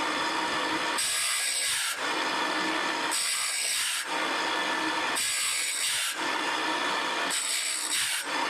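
Rhythmic back-and-forth rasping, like a file or rasp worked in even strokes. The strokes alternate about once a second, and every other one is brighter and hissier.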